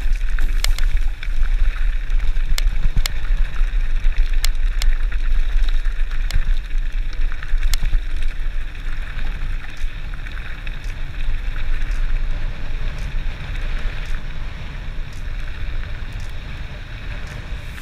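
Wind buffeting the camera microphone over the rolling rush of a Specialized Stumpjumper FSR mountain bike's tyres on loose gravel, with scattered sharp clicks and knocks from the bike. Louder in the first half, easing off in the second.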